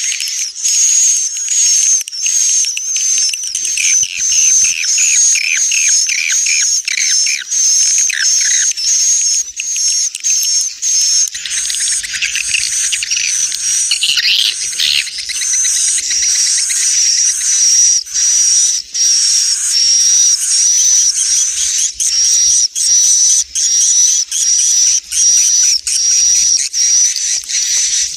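Edible-nest swiftlet calls: a loud, continuous high chattering twitter with rapidly repeated chirps, and a lower run of chirps in the first third. It is a roosting ("inap") lure call, played to draw swiftlets in to roost and nest.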